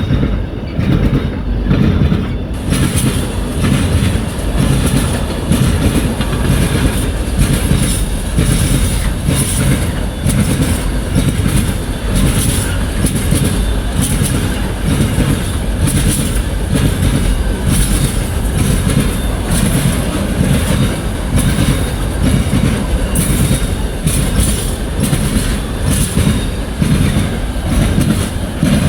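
A train running past on the track close by: a loud, continuous rumble of wheels on rail, with a high hiss joining in about two and a half seconds in.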